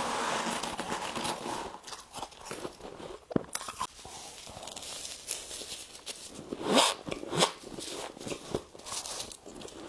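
Freezer frost ice being bitten and chewed close to the microphone: a run of irregular crisp crunches, the loudest about seven seconds in.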